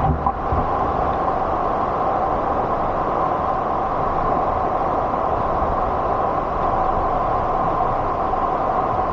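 Steady rush of water flowing and falling over rocks, an even noise that holds without a break.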